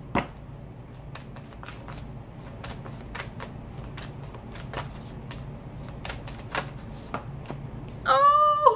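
A deck of oracle cards being shuffled by hand: a run of light, irregular card clicks and slaps.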